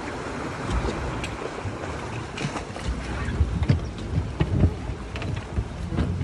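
Wind on the microphone over sea surge, with a low rumble. Several sharp knocks and thumps about halfway through as a person climbs from the rocks into an inflatable boat and lands on its tube and deck.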